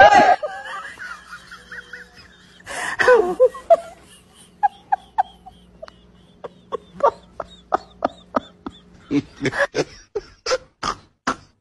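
Laughter: a loud burst at the start and another about three seconds in, then a long run of short, evenly spaced laughing pulses that grow louder near the end.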